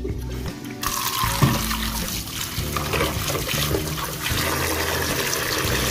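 Tap water running onto eggs in a bowl as they are rinsed by hand, starting suddenly about a second in, over background music.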